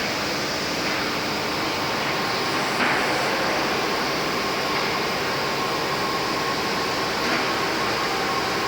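IMEAS LCSI 190 two-head panel sanding machine running steadily, a constant mechanical hum and rush with a few steady tones, and a brief louder rasp about three seconds in.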